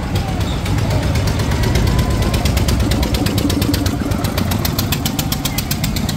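Small fairground dragon roller coaster running: a steady low mechanical rumble with a rapid, even clicking.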